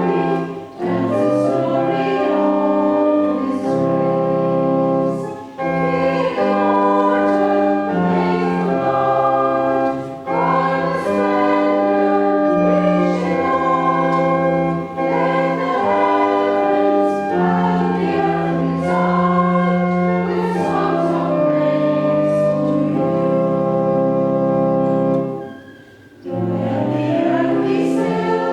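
A hymn sung by many voices with organ accompaniment, phrase by phrase, with a longer break near the end before the next line starts.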